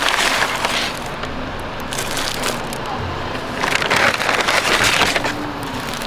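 Brown paper bag crinkling and rustling as it is opened and handled, in two bouts: one in the first second and another from about three and a half to five seconds in.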